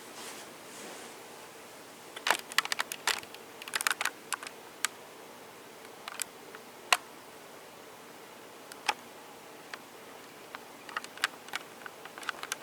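Handling noise: irregular sharp clicks and taps, some in quick clusters of several, others single.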